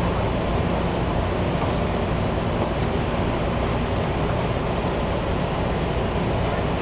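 Cabin noise of a Taipei Metro Wenhu Line Matra VAL 256 rubber-tyred train under way: a steady, even rumble and roll of the running gear.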